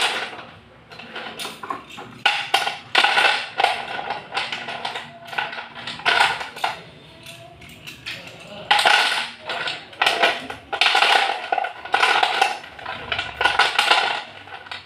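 Handfuls of slate pencils clattering and rattling against each other and a plastic plate as they are shaken, rubbed together and raked about, in irregular bursts.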